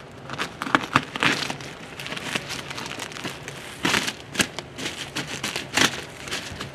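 A cardboard box wrapped in lots of packing tape being hacked open: the tape and cardboard rip, scrape and crinkle in irregular bursts.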